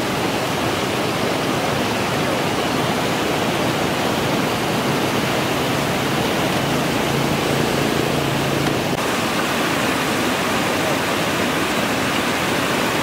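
Floodwater rushing steadily over a low dam spillway, a loud, even roar of water.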